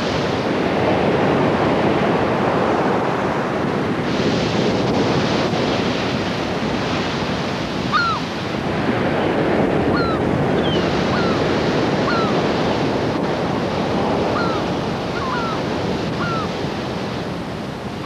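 Heavy ocean surf: waves breaking and churning continuously, with wind. From about eight seconds in, short bird calls that slide down in pitch repeat roughly once a second over the surf.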